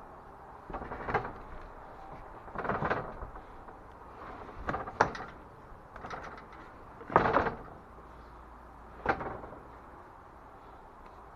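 Metal scaffold parts being handled: about six knocks and scrapes, a second or two apart, the loudest about halfway through.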